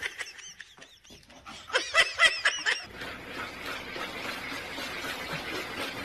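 A cat's short, high-pitched cries that rise and fall, a few at first and then a quick run of about five, followed by a steady hiss from about three seconds in.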